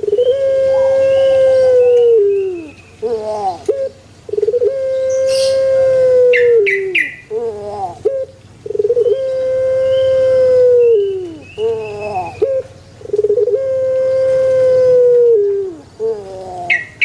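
Puter (Barbary dove) cooing: a repeated phrase of a few short stuttering notes followed by one long held coo that drops in pitch at its end, four times. A few brief high chirps from another small bird come in between.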